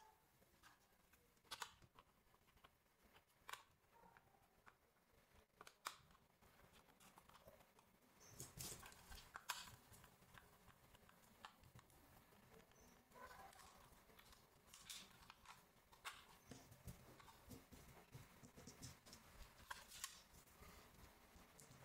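Near silence with faint, scattered clicks and taps of a small plastic RC drift car being handled and unscrewed with a small screwdriver.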